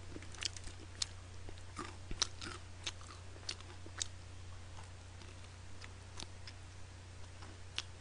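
Close-miked chewing and biting of fried chicken: irregular sharp crackles and smacks, most frequent in the first few seconds and sparser after. A steady low hum runs underneath.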